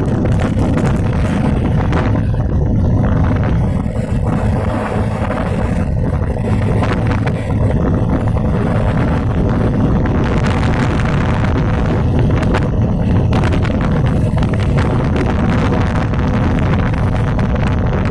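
A vehicle engine running steadily, under heavy wind noise on the microphone.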